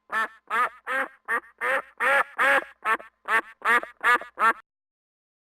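Duck quacking: a quick run of about a dozen quacks, roughly two or three a second, that stops about four and a half seconds in.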